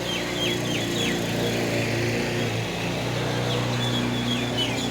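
Small birds chirping in short, quick falling notes, a flurry in the first second and more near the end, over a steady low hum.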